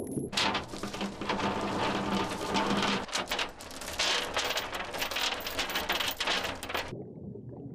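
Anchor chain running out fast over the side of a boat, a dense continuous clatter of metal links, which stops suddenly near the end as the chain runs out.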